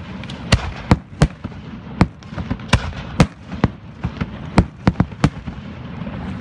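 Aerial firework shells bursting in quick, irregular succession: about a dozen sharp bangs over a continuous background hiss.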